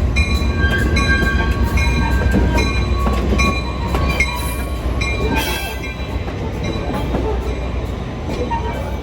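Diesel train running close by, with a heavy low rumble that eases off after a few seconds. Short high ringing tones repeat about twice a second over it.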